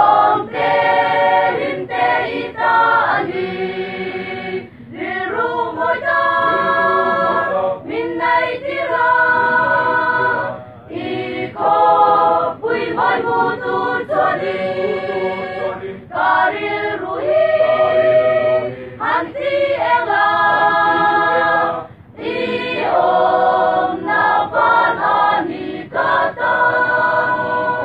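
A choir of young women and men singing a cappella, in phrases with short breaks between them.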